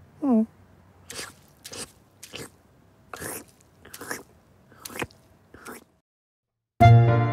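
A cartoon cat's munching sound effects: a short falling vocal grunt, then a string of about seven separate chewing bites as it eats cake. The bites stop, and after a brief silence music starts near the end.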